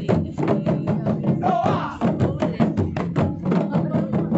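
Rampak gendang: an ensemble of West Javanese kendang barrel drums struck by hand in a fast unison rhythm, several strokes a second.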